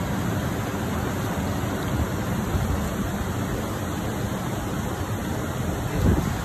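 Fast river water rushing steadily over rapids below a cascade. There is a brief low bump about six seconds in.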